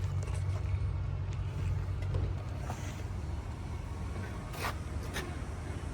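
Steady low rumble of an idling vehicle engine, with two sharp clicks about four and a half and five seconds in.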